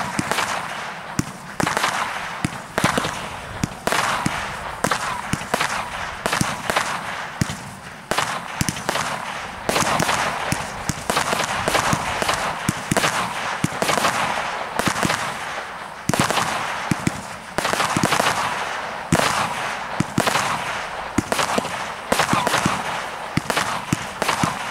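A 256-shot firework barrage cake firing shot after shot, about one to two a second, each a sharp bang trailing off in a hiss as the small star bursts open.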